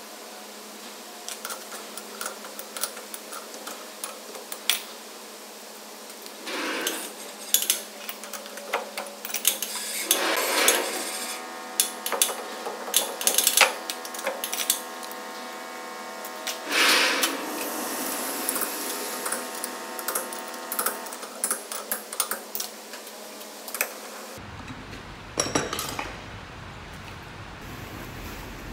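Steel clanking and clinking as a lathe chuck is handled and swapped, with many sharp metal knocks. A steady hum comes in for several seconds midway.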